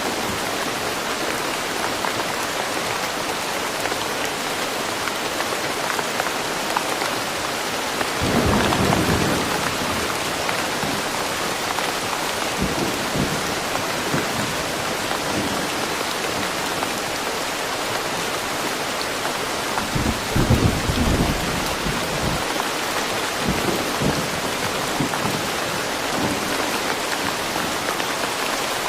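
Steady rain falling in woodland, with low rumbles of thunder, the strongest about eight seconds in and again about twenty seconds in.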